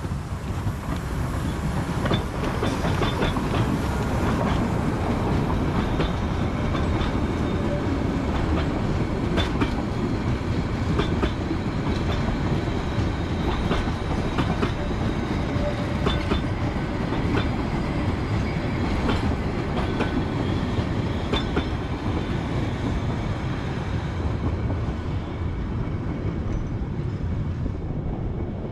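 HSB metre-gauge steam train passing close by: a steady heavy rumble as the locomotive and then its coaches roll past, with wheels clacking over rail joints every second or two.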